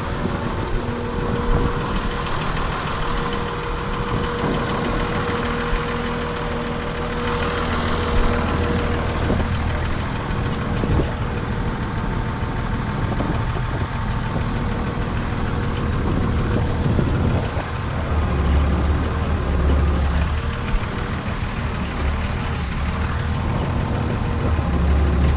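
Renault farm tractor's diesel engine running steadily, with a steady whine over it; the engine note swells deeper twice, about two thirds of the way through and near the end.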